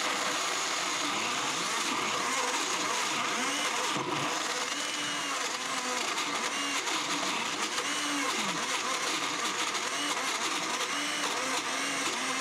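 Blendtec Designer 625 blender running with its Twister jar, chopping nuts, dates, raisins and currants into a crumbly energy-bite mix. The motor runs steadily at speed, its pitch wavering up and down repeatedly as the load shifts.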